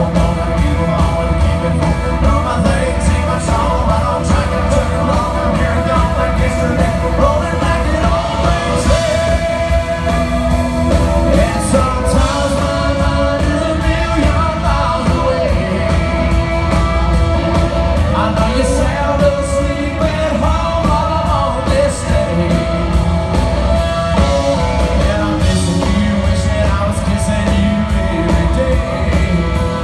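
Live country band playing: fiddle, acoustic and electric guitars and drum kit, with a man singing.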